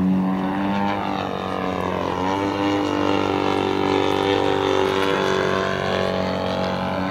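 Engine and propeller of a 35% scale Aeroworks Extra 260 radio-controlled aerobatic plane in flight. The engine note wavers, dipping about two seconds in and then rising again.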